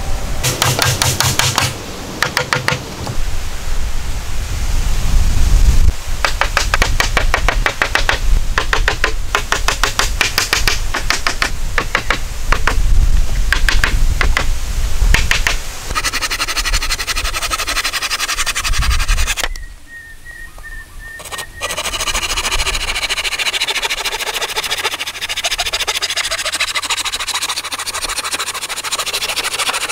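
Woodworking on planks: knocks and scraping of boards, then a saw rasping through a wooden plank in steady strokes near the end.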